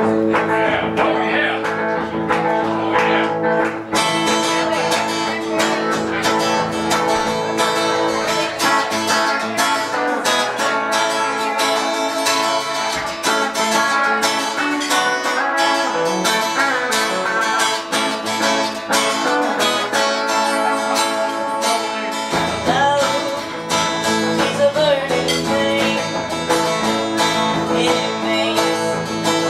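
Acoustic guitar strummed steadily through the opening of a song, the strumming fuller from about four seconds in. A woman's singing voice comes in over it near the end.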